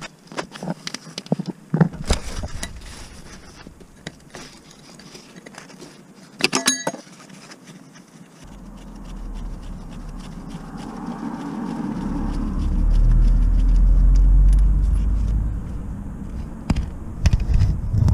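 Metal clicking and clinking of a spanner working bolts on the gearbox, with a short burst of sharp clinks about six seconds in. A low rumble builds up in the second half, peaks and fades, with more clinks near the end.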